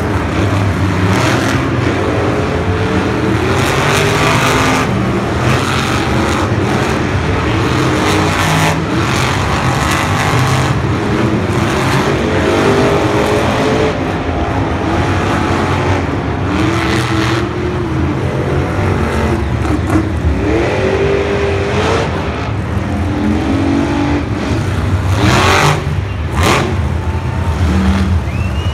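Several monster trucks' supercharged V8 engines running and revving together, their pitch rising and falling again and again over a continuous loud rumble.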